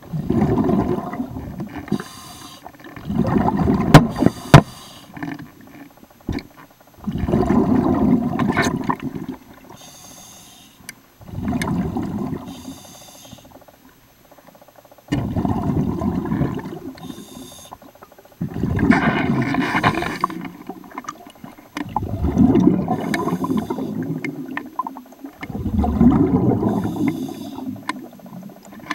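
Diver breathing underwater through a scuba regulator: a short hiss on each breath in, then a one-to-two-second rumble of exhaled bubbles, repeating about every three to four seconds.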